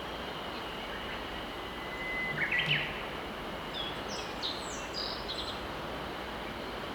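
Steady rush of a clear mountain river, with birds chirping over it: a short run of stepped notes about two and a half seconds in, then a string of higher chirps around four to five and a half seconds.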